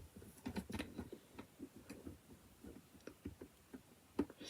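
Faint, irregular small clicks and taps of plastic LEGO bricks being handled and pressed into place.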